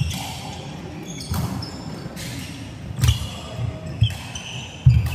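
Badminton rally: several sharp racket hits on the shuttlecock, heavy footfalls and lunges on the court floor, and short high squeaks of shoes.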